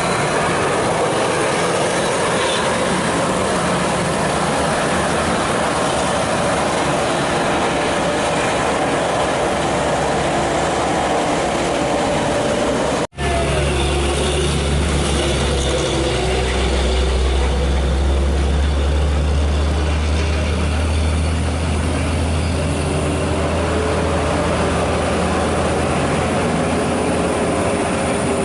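Heavy trucks and buses climbing a steep mountain grade, their diesel engines running loud and steady under road noise. The sound cuts out for an instant about halfway through, then a deep low engine drone takes over.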